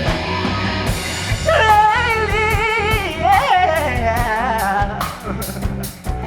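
Live rock band playing: drum kit with cymbal hits, bass guitar and electric guitar. From about a second and a half in, a long held melody line bends and wavers in pitch over the band for a few seconds.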